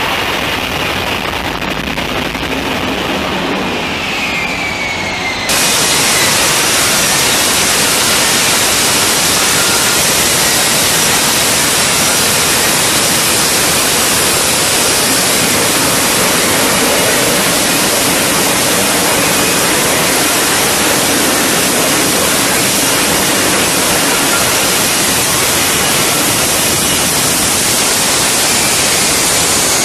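Lockheed Martin F-35B Lightning II hovering for a vertical landing: loud, steady rushing jet noise from its F135 engine and shaft-driven lift fan. It jumps sharply louder about five and a half seconds in and stays loud.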